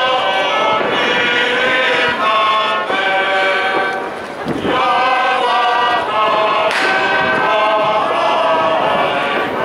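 Male choir singing in long held chords, with a brief pause for breath about four and a half seconds in. A single sharp crack sounds just before seven seconds in.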